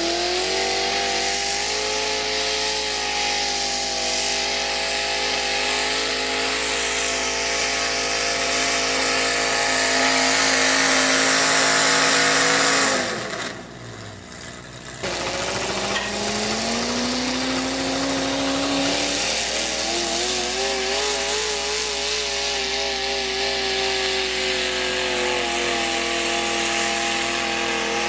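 Modified garden-size pulling tractor engines running hard under load while dragging a pulling sled. The first engine holds a steady high-revving note and grows louder, the sound cuts out for about two seconds near the middle, then a second tractor's engine revs up and holds, its pitch wavering as it pulls.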